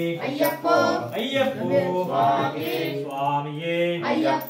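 A group of male voices chanting Ayyappa devotional calls in long, held, sung notes, several voices overlapping.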